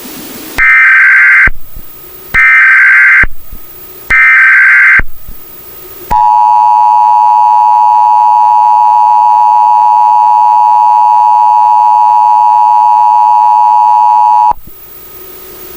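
Emergency Alert System alarm played at full blast and distorted. It starts with three short bursts of SAME data tones, each under a second, then the two-tone EAS attention signal sounds steadily for about eight seconds and cuts off.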